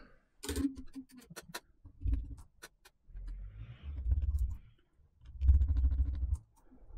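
Irregular light clicks and ticks of a small screwdriver and screws as screws are driven into a MacBook Air's logic board. Low dull bumps of handling come about two, three and five and a half seconds in.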